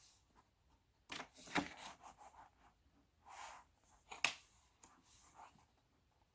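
Quiet paper handling: pages of a photo book being turned, a few soft rustles and light taps, the sharpest about four seconds in.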